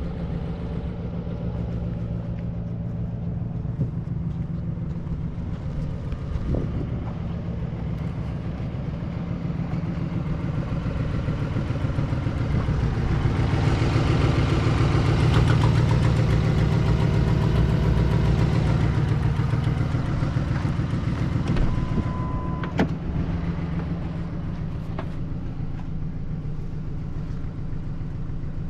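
2008 Ford F250 pickup's engine idling steadily, louder for several seconds around the middle where it is heard from beneath the truck.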